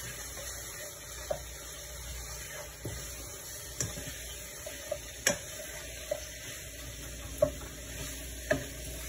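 A spoon stirring chicken curry in a cooking pot, with a sharp knock or scrape against the pot every second or two over the low sizzle of the curry cooking.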